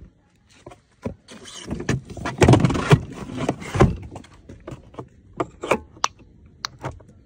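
Extended scooter battery being lowered into its under-seat compartment: its plastic case scrapes and bumps against the compartment, loudest between about two and four seconds in, followed by a few sharp clicks and taps as it is seated.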